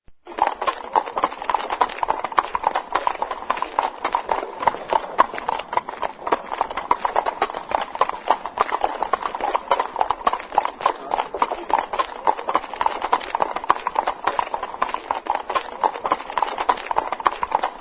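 Horse's hooves clip-clopping at a steady trot, a brisk, even rhythm of sharp hoof strikes.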